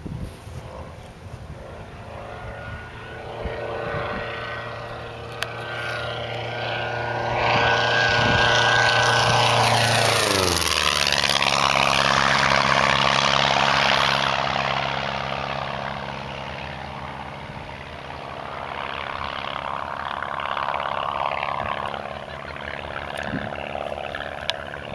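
Factory-built Falco light aircraft making a low flyby at about 200 mph: the drone of its piston engine and propeller grows louder on the approach, drops sharply in pitch as it passes about ten seconds in, then fades as it flies away.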